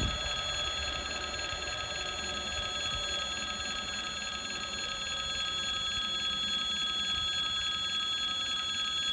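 Electric level-crossing warning bell ringing steadily and without a break.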